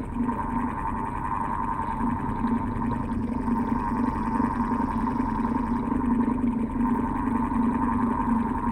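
Old electric house fan running steadily: a constant hum with a slightly wavering whir.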